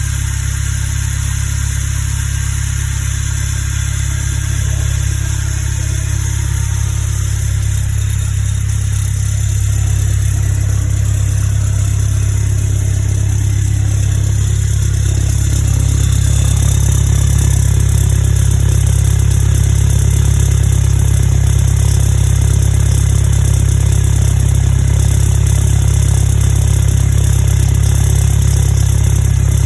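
Westfield kit car engine idling with a misfire at tick over that new ignition leads have not cured. It gets a little louder about halfway through.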